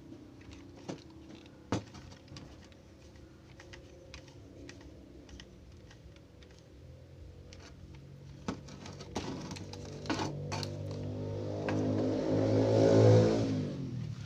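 Light plastic clicks and taps from handling, then the RC toy bulldozer's motor sound swells to a loud peak with a buzzing, many-toned pitch near the end and drops away quickly.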